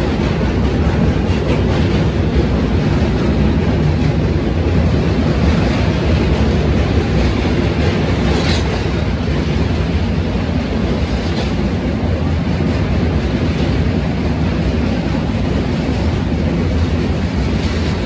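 Steady rumble of a passenger train running at speed, heard from its open doorway, with a few faint clicks from the wheels over the track.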